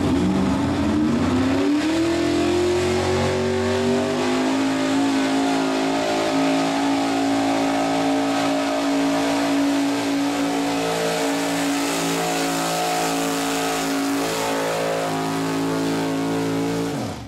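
Modified gas pulling truck's engine at full throttle, hauling a weight-transfer sled. The revs climb over the first few seconds, hold high and steady through the pull, and fall away at the very end.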